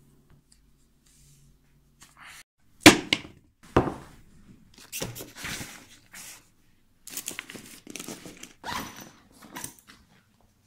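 A fabric backpack being handled and packed: two loud thumps about three and four seconds in, then stretches of rustling from the bag and its contents.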